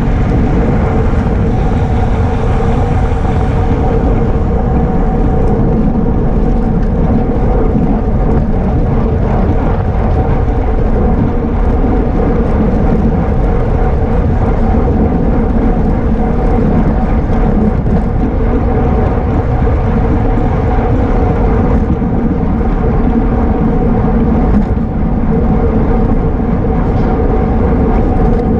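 Wind rushing over the microphone of a camera riding on a road racing bicycle at speed, with a steady hum running through it.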